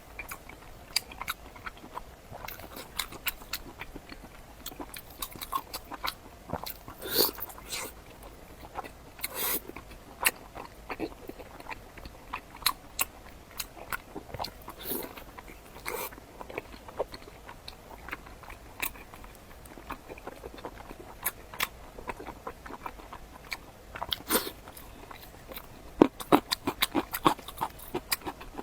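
Close-miked eating: biting and chewing with scattered crisp crunches and wet mouth clicks, and a quick run of crunches near the end.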